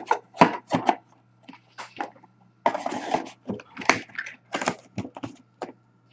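Handling of trading cards and their packaging: irregular sharp rustles and taps, with a longer stretch of rustling about three seconds in.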